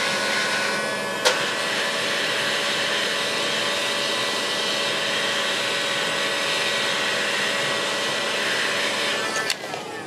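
Heat gun blowing steadily, shrinking heat-shrink tubing on a headphone cable. There is a single click about a second in, and the heat gun stops near the end.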